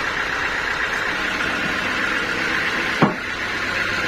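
Sawmill machinery running steadily with a low hum, and one sharp knock about three seconds in.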